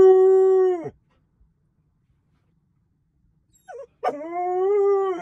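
Husky howling: one long steady howl that trails off and stops about a second in, then after a pause a brief short call and a second long, slightly wavering howl near the end.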